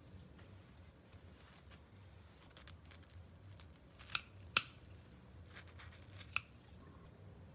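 Kitchen scissors snipping through a crisp fried dough stick (cha quay, Chinese doughnut): four or so sharp snips in the second half, the loudest a little past halfway.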